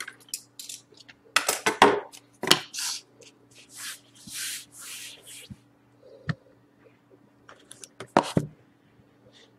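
Cardboard trading-card boxes and their packaging being handled on a table: a run of uneven rubbing and scraping strokes, with a couple of sharp knocks in the second half.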